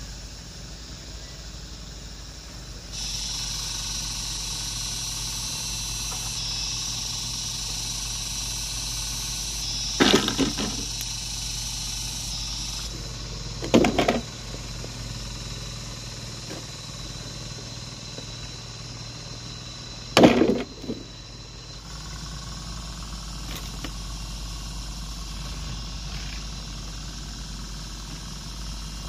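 Three hard chopping strikes of a hand tool, about four and six seconds apart, over a steady low hum. A high hiss comes in about three seconds in and stops about ten seconds later.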